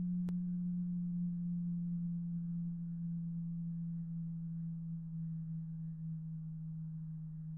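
A steady low hum on one pitch with faint overtones, slowly fading, with a single sharp click about a third of a second in.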